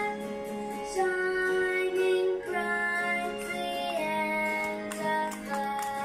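Background music: a melody of held notes that change every half second or so, over a steady low drone.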